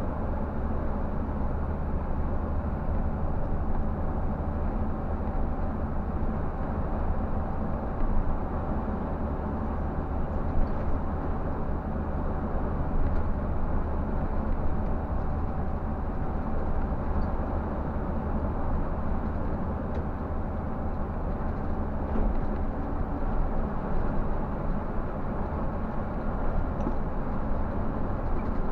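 Scania K124 360 coach driving steadily at cruising speed, heard from the driver's seat: a constant low drone from its 12-litre inline-six diesel with tyre and road noise, and a few faint ticks.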